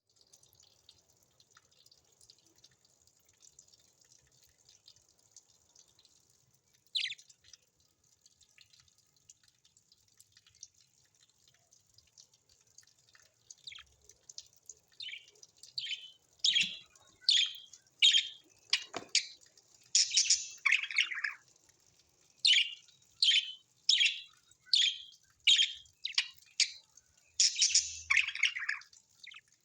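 Birds calling. A faint, busy high-pitched twittering of many birds gives way, about halfway through, to loud, sharp, short calls that sweep downward in pitch and repeat roughly once a second.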